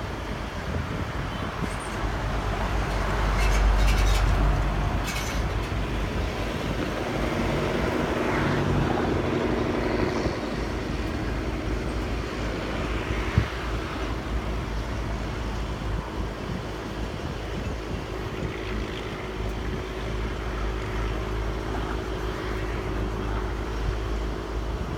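Road traffic passing close by: a steady vehicle rumble that swells louder as vehicles go past about three seconds in and again around eight to ten seconds, with a single sharp knock a little past halfway.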